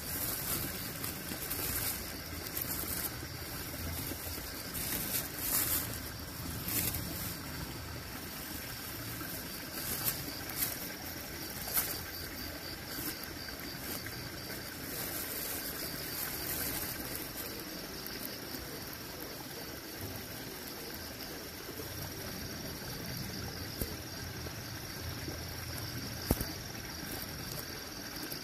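Soft rustles and brushes of a hand against a reflective shade net, heard mostly in the first half, over a steady high drone like insects.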